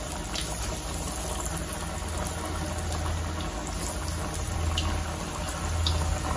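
Banana-flower vadai deep-frying in hot oil in an iron kadai: a steady sizzle and bubbling of the oil, with a low hum underneath.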